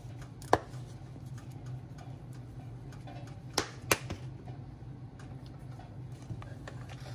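Sharp clicks from a cinnamon container being handled as cinnamon is shaken into a pot of oatmeal: one loud click about half a second in, then two more close together near the middle, over a steady low hum.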